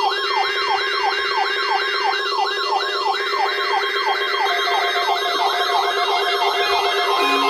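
Electronic alert siren: rapidly repeated falling sweeps, about three a second and quickening toward the end, layered over a steady low tone and other wavering tones. It sounds as part of an emergency alert tone sequence, and a new steady tone enters just before the end.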